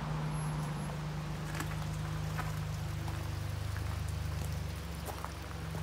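Steady hiss of running water from a river, with scattered light ticks over a low steady hum.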